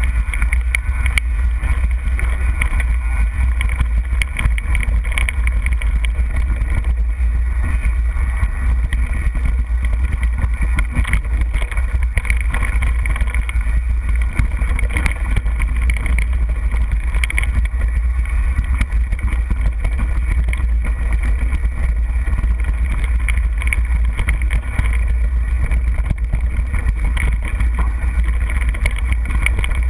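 Wind buffeting the microphone of a bike-mounted action camera as a 29er mountain bike rolls over rocky dirt singletrack: a steady low rumble with constant rattles and clicks from the bike and tyres on the rocks.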